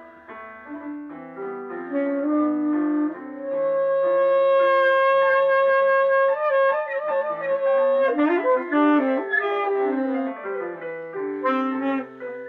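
Free jazz for tenor saxophone and piano, with a walking low line underneath. The saxophone holds one long note through the middle, then breaks into fast, sliding runs.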